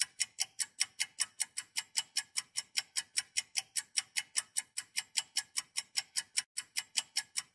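Quiz countdown-timer sound effect: crisp, evenly spaced clock-like ticks, about five a second.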